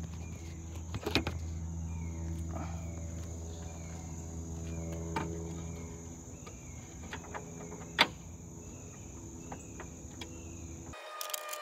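Hand tools on metal: a wrench working bolts behind a Jeep's grille gives scattered clicks and clinks, with one sharp knock about eight seconds in. Under it are a steady low hum, which cuts off abruptly near the end, and a regular chirping of insects.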